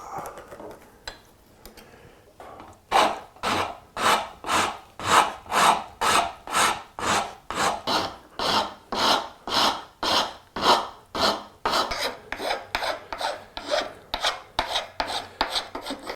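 Wood being shaped with a rasp in steady, even strokes, about two a second. The strokes start about three seconds in and get a little lighter after about twelve seconds.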